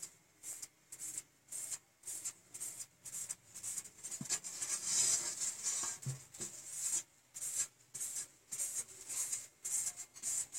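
A hand rubbing and smearing paint across a wood-like panel in repeated short hissy strokes, about two a second, with a longer sweep about five seconds in.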